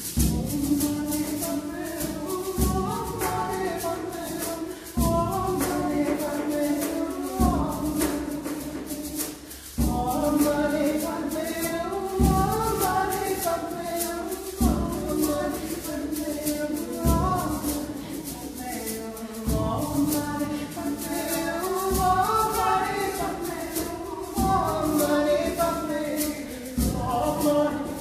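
Loop-based experimental music: a sung vocal line over a sampled loop that repeats about every two and a half seconds, with a constant rattling shaker on top.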